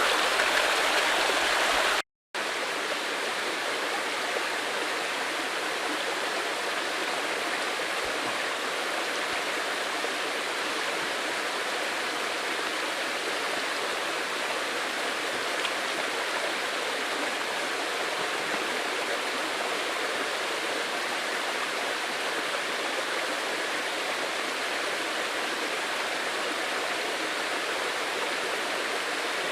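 Steady rush of water from a small waterfall and its stream. The sound cuts out for a moment about two seconds in, then continues slightly quieter.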